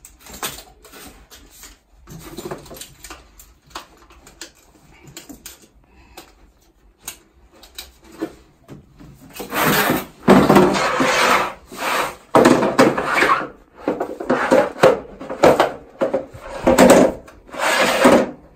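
A Magnacleanse flushing unit, its hose connectors and its plastic carry case being handled on a concrete floor. A few light clicks and knocks come first. From about halfway there is loud rubbing and scraping in several bursts, as the plastic case and tray are moved about.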